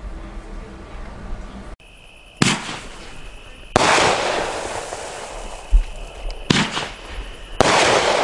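25-shot, 500-gram consumer firework cake firing: four sharp shots come a second or more apart, each dying away slowly before the next. A low rumble comes before the first shot.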